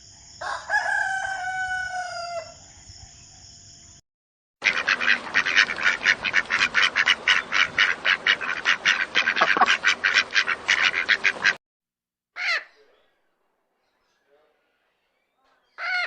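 A rooster crows once for about two seconds. After a short break comes a rapid run of harsh calls, about five a second, lasting some seven seconds, then two short separate calls near the end.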